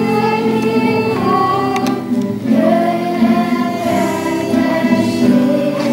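A song with a group of voices singing long held notes, one after another.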